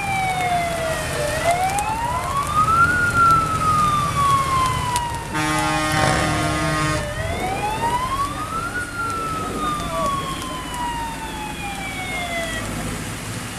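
Fire engine siren wailing in slow sweeps, each gliding up and then sinking down again over several seconds, stopping near the end. A horn blares for about two seconds about halfway through, over the low rumble of a tractor engine passing close by.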